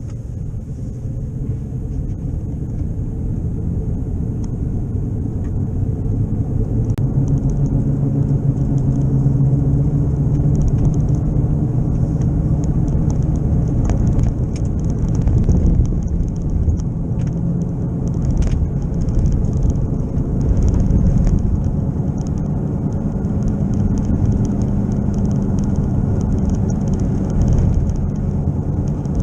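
Inside a 2011 Chevrolet Malibu picking up speed: a steady low rumble of the moving car with the knocking noise of a bad left wheel bearing, getting louder over the first several seconds as speed builds.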